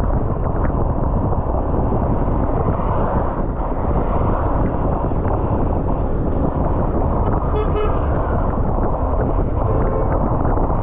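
Steady wind blast on the microphone while travelling along a road, over a constant rumble of engine and road noise.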